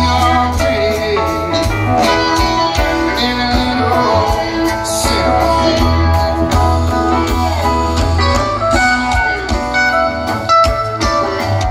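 A live rock band plays with an electric guitar out front over bass, drums and keyboards, recorded from the audience in an arena.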